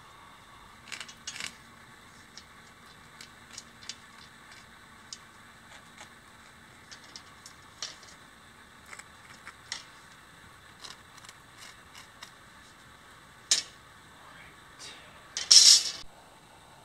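Scattered light clicks and taps of a metal ruler and cast styrocrete panels being handled and set on a concrete floor, with a sharp knock near the end and a louder, longer clatter just after it.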